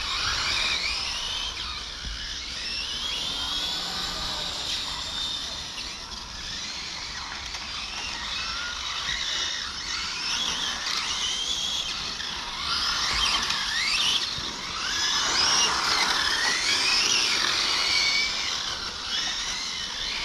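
Several electric 1/8-scale GT RC cars' motors whining as they race, the pitch gliding up and down as they speed up and brake, with several cars overlapping. Louder from about twelve seconds in, as the cars come closer.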